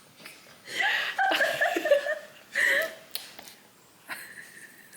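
People laughing and chuckling, with a stray word or two. It dies down over the last couple of seconds.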